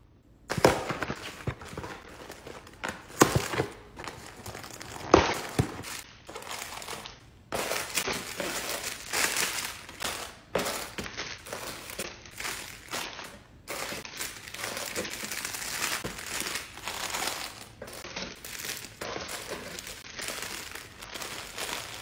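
Plastic wrapping crinkling and rustling as a wrapped multipack is handled and packed into a clear plastic organizer bin. In the first few seconds there are several sharp knocks of hard plastic set down on a hard countertop; from about a third of the way in, the crinkling runs almost without a break.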